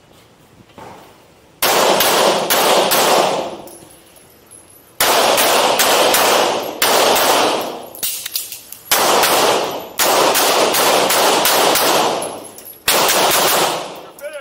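Semi-automatic pistol fired close by in quick strings of several shots, five strings in all with short pauses between them, the reports ringing on in the reverberant indoor range.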